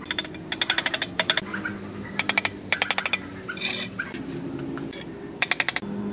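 Several quick runs of sharp taps, about ten a second, as bricks are knocked down into fresh mortar with a trowel while being laid around the top rim of a brick oven.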